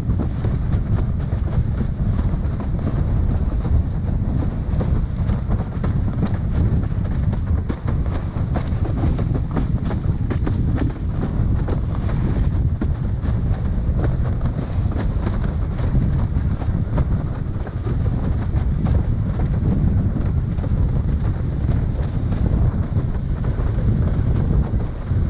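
Strong wind buffeting a camera microphone, mixed with the steady rush of a windsurf board moving over the water. The noise is dense and deep, with constant small fluctuations.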